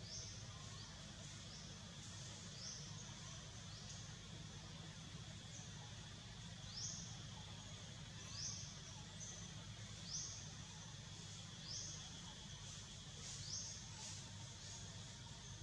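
Faint forest ambience: short, high, rising chirps repeat every second or two over a steady high hum and a low rumble.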